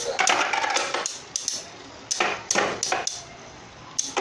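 Two Beyblade Burst spinning tops battling in a plastic stadium, clashing into each other and the stadium wall in a run of sharp, irregular clacks, several a second.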